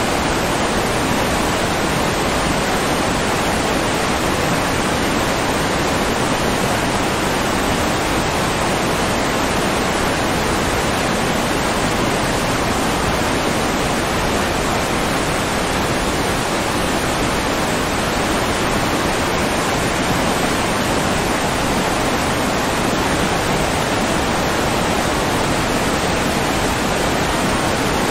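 Steady rushing water, like a stream or waterfall, running at an even level without change. It is a continuous water-sound bed rather than the sound of the animals shown.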